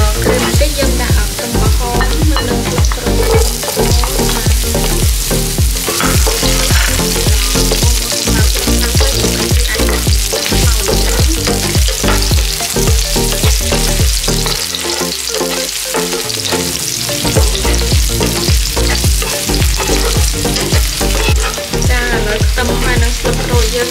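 Garlic, shallots and chili sizzling in oil in a non-stick frying pan, stirred and scraped with a wooden spatula. Background music with a steady bass beat plays under it, the bass dropping out for a couple of seconds around the middle.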